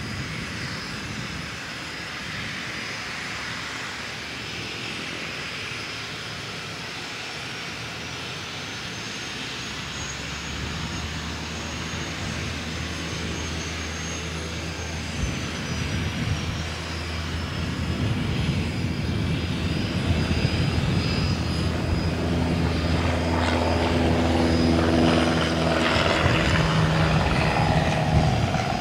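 Gulfstream G650's twin Rolls-Royce BR725 turbofans at taxi power: a steady high whine over a low rumble. The whine rises in pitch about ten seconds in and settles back a few seconds later, and the sound grows louder over the last third.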